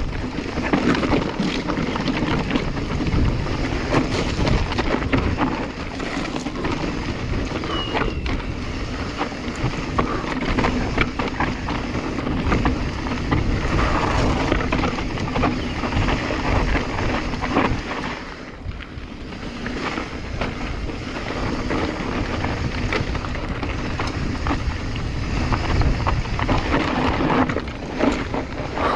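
Mountain bike descending a rough dirt trail at speed: wind buffeting the chest-mounted camera's microphone over tyre noise on dirt and gravel, with frequent rattles and knocks from the bike over bumps. It eases briefly about two-thirds of the way through.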